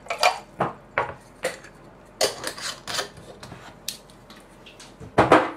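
Glass jars clinking and knocking against each other and on the wooden workbench: a string of sharp clicks with a louder clatter near the end. The jars are being handled as Polaroid shutter aperture blades are set to soak in acetone.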